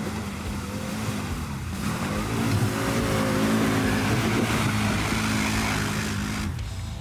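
Loncin X-Wolf 1000 ATV engine under throttle, revving up about two seconds in and running louder, then easing off near the end.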